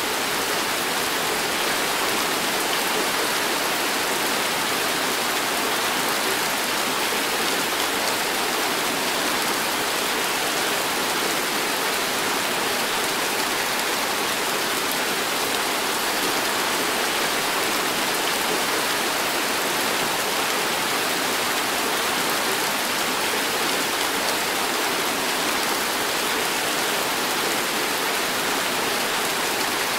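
Heavy tropical downpour falling steadily on trees and pavement: a dense, even hiss that holds at one level throughout.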